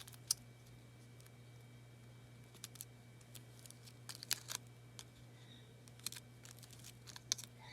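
Sparse light clicks and rustles of hands handling paper craft pieces, as adhesive letter stickers are peeled and pressed into place. A faint steady low hum runs underneath.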